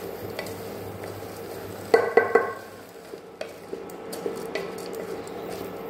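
Wooden spatula stirring and scraping rice and green peas frying in an aluminium pressure-cooker pot on medium heat, with light sizzling. About two seconds in, three quick louder knocks ring out against the pot.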